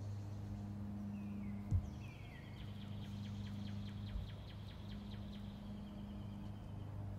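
A songbird calling outdoors: two short falling slurred notes, then a fast, even trill of repeated high notes lasting about four seconds. A steady low hum runs underneath, and a single thump sounds just under two seconds in.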